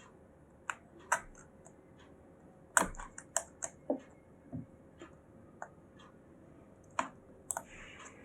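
Irregular small clicks and taps of fingers handling a replacement laptop screen panel and lining up its display cable connector, the loudest about three seconds in.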